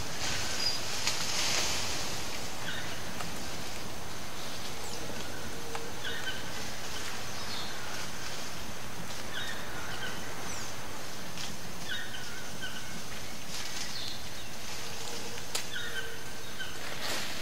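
Tropical rainforest ambience: a short two-note bird call repeated every second or two over a steady high-pitched insect drone.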